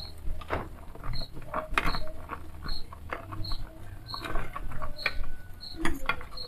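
A utensil scraping and tapping in a clay pot of simmering dried-pea broth as the loose husks are skimmed off, in irregular clicks and scrapes. A faint high chirp repeats about every three-quarters of a second.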